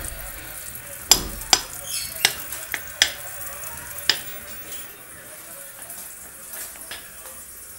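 Popcorn kernels from garden-grown corn popping in a pan over a gas flame: about six sharp pops in the first four seconds over a steady sizzling hiss, fewer pops after that.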